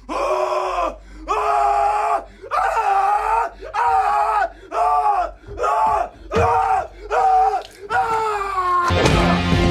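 A man screaming in a run of about nine long, pitched cries with short gasping breaks between them, the cries growing shorter toward the end. Music cuts in abruptly near the end.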